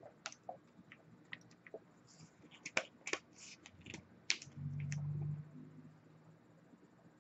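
Faint small clicks and taps from a vape mod being handled, then a low steady hum for about a second, about four and a half seconds in, as the vape is brought up for a hit.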